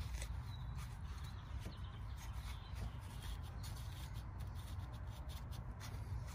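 Faint rustling and scrubbing of a paper towel wiping out an engine's oil filter housing, in scattered short scrapes over a steady low rumble.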